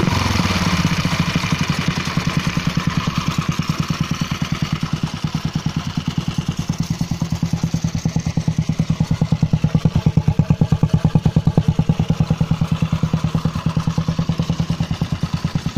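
The French Bernard 127 engine of a homemade motorcycle idling steadily, with an even, rapid beat of firing pulses.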